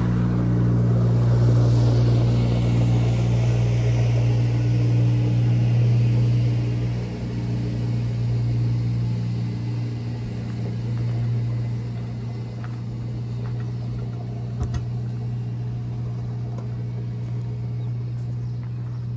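A motor vehicle's engine running steadily with a low hum, easing a little about seven seconds in.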